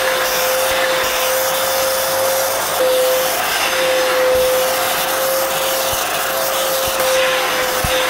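Arnica Vira water-filter washing vacuum cleaner running with its upholstery nozzle drawn over a fabric sofa cushion: a steady motor whine over a rushing suction hiss.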